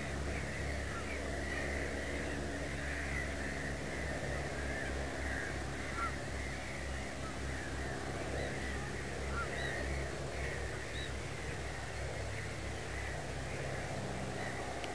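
Outdoor ambience of many birds calling, a continuous chatter of short chirping notes with a few brief rising whistles, over a steady low hum.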